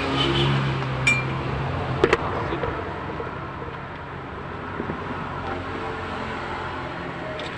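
Metal clinking of tools on parts while a truck's manual transmission is being taken apart: a sharp ringing clink about a second in and a louder double clink about two seconds in. Beneath them a low vehicle engine hum fades away.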